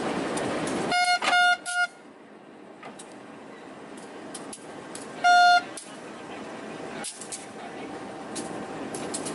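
Train horn giving three short toots about a second in, then one louder toot about four seconds later, as a signal during shunting and coupling of a locomotive to the train. A steady rumble drops away after the first toots, and light metallic clicks come from around the coupling.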